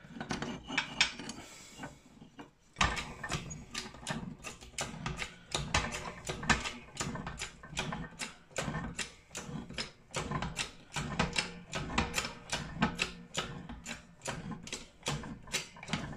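Keyway broach being pressed down through the bore of a 49-tooth gear in a shop press, cutting the keyway: an even run of short clicks, about three a second, after a brief lull near the start.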